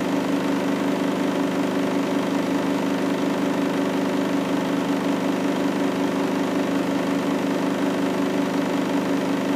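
Front-loading washing machine running a 60-degree wash, giving off a steady, unchanging machine hum.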